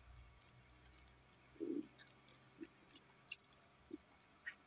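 Near silence: room tone with a faint low hum and a few small scattered clicks.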